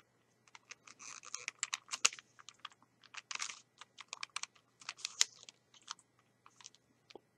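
Plastic clicking and clacking of a 2x2x4 Rubik's-type cube's layers being turned by hand, in quick irregular runs of clicks. The cube turns stiffly.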